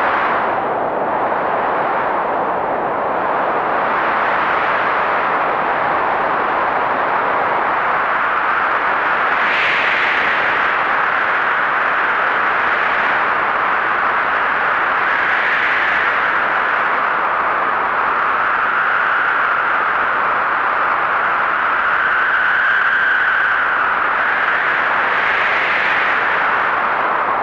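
Howling blizzard wind, a steady rush of noise that swells in gusts, with a faint whistling note coming through for several seconds past the middle.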